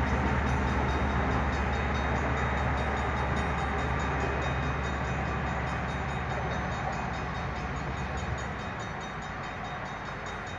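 Diesel locomotive engine running with a steady low drone and rumble, slowly fading as the train moves away; the deepest part of the drone drops out about eight and a half seconds in.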